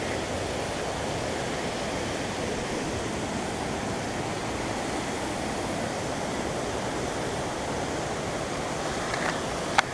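Steady rush of falling water from a waterfall on a clear-water river. One sharp click near the end.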